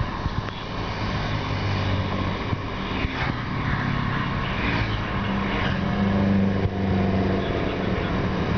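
Motorbike and scooter traffic passing close by on a street: small engines running and shifting in pitch over a steady hum of tyres and traffic. The loudest bike goes by about six seconds in.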